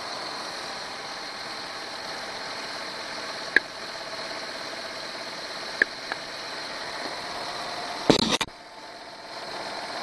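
Nissan Pathfinder engine idling steadily with the air conditioning running while the AC system is charged with refrigerant. Two small clicks come about a third and halfway through, and a short, loud noise burst comes near the end.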